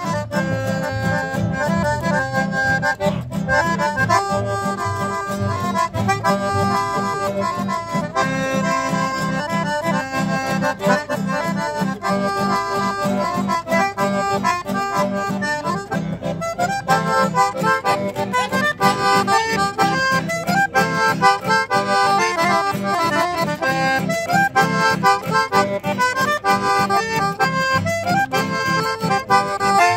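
Button accordion playing a quick melody over a strummed acoustic guitar keeping a steady rhythm.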